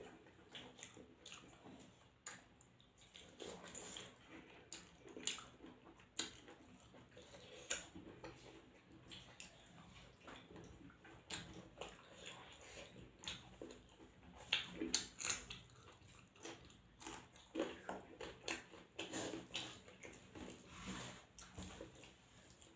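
Eating by hand: wet chewing and lip smacks, with fingers squishing rice and curry on the plate, in many short irregular clicks.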